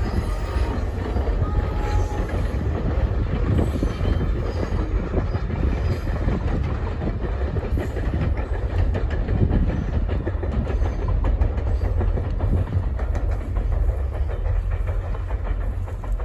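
A train rolling past with a steady heavy rumble and rapid clicking of its wheels over the rails, likely the Canadian Pacific Holiday Train.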